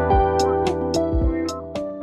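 Background music: held instrumental chords over a light, steady beat.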